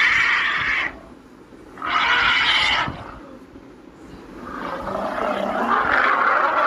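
Dinosaur roar sound effects: two short roars of about a second each, then a longer roar that builds up over the last two seconds.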